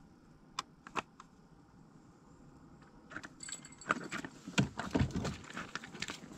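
A few sharp clicks, then from about three seconds in a busy clatter of knocks and rustling that grows louder.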